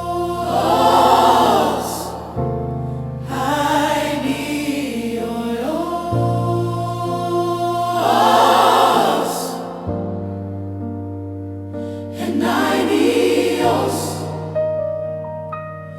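Gospel choir singing slow phrases, roughly one every two seconds, over sustained accompaniment chords that shift every few seconds.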